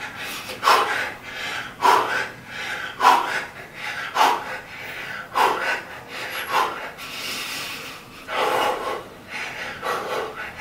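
A man exhaling hard in short, sharp breaths, about one a second in time with fast air punches, with a longer breath about eight seconds in.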